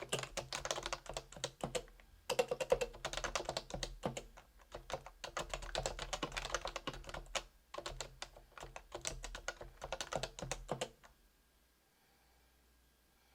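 Typing on a Realforce R2 keyboard with stock 45 g Topre switches: dense runs of key presses in bursts with brief pauses, stopping about eleven seconds in.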